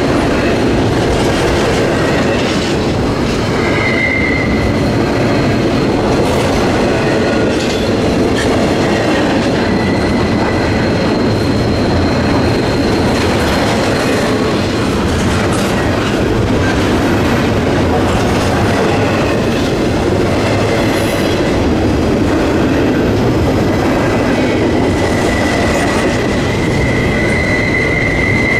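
Freight train rolling steadily past, its wheels rumbling on the rail with clicking over the rail joints. A thin, high wheel squeal rises about four seconds in and again near the end.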